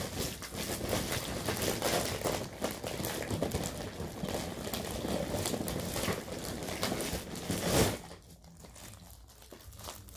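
Plastic candy packaging crinkling and rustling as hands rummage through an Easter basket; it dies down about eight seconds in.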